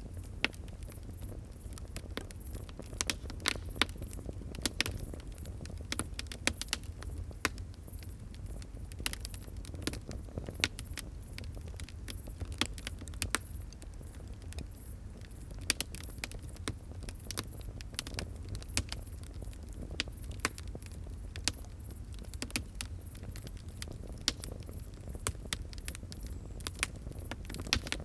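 Wood fire crackling, with frequent sharp irregular pops and snaps over a steady low rumble of the flames.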